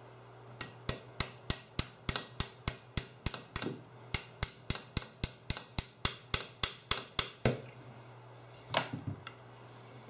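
AR-15 A2 rear sight's windage knob being turned through its detents: a steady run of sharp metallic clicks, about three a second for some seven seconds, then a single softer knock near the end.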